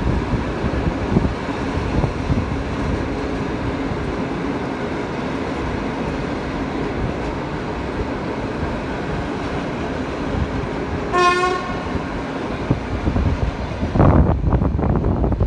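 PKP Intercity passenger coaches rolling past with a steady rumble of wheels on rail. A single short horn toot sounds about eleven seconds in, and near the end the wheels clatter over rail joints.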